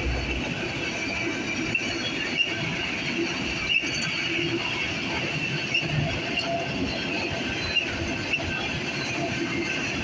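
Freight train of autorack cars rolling steadily past: a continuous rumble and rattle of steel wheels on rail, with a faint high wheel squeal running under it and a few sharp clicks as the wheels pass over rail joints.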